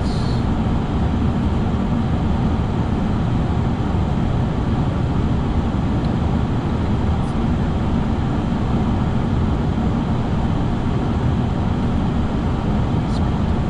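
Steady rushing noise of air and engines on the flight deck of a four-engined Airbus A340 descending on final approach, even and unchanging throughout.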